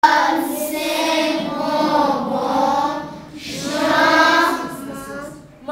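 A class of young children reciting a lesson together in a sing-song chant. There are two long phrases, with a short break about three seconds in, and the second fades out near the end.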